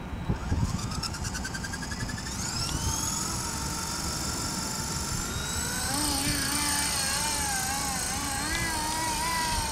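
Esky Honey Bee CPX electric RC helicopter spooling up, its whine rising in pitch over the first few seconds and then holding steady. From about six seconds in, the pitch wavers up and down as it flies. Wind rumble on the microphone throughout.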